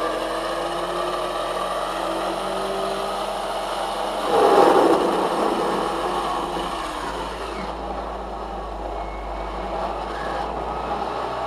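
Brushed electric motor with rough, gravelly-sounding bearings spinning a cracked record at high speed: a steady mechanical whirring rush that surges louder about four seconds in, then eases.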